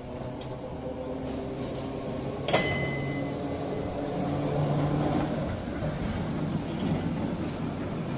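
A vehicle engine running and growing louder, with a sharp metallic clank about two and a half seconds in that rings briefly.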